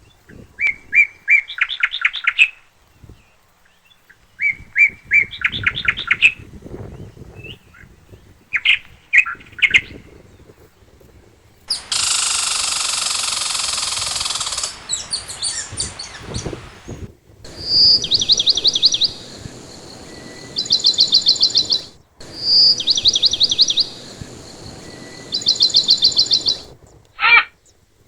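Songbirds singing: short phrases of rapid trilled notes, repeated every few seconds. A loud rushing noise lasts about three seconds near the middle.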